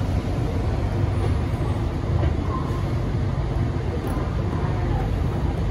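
Onboard running noise of a Bombardier Innovia APM 100 rubber-tyred people mover moving slowly out of a station. It is a steady low rumble from the tyres and traction motor, with no clear changes.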